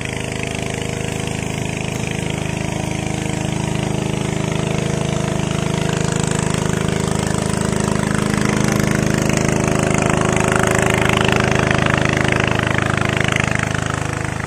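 A small engine running steadily at an even pitch. It grows louder toward the middle and eases off near the end.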